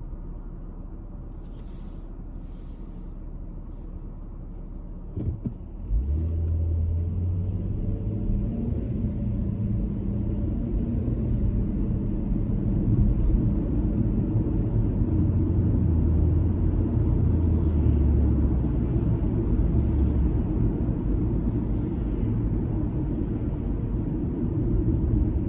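Car driving, heard as a steady low rumble of road and engine noise. A couple of short knocks come about five seconds in, after which the rumble grows louder and a low steady engine hum joins it.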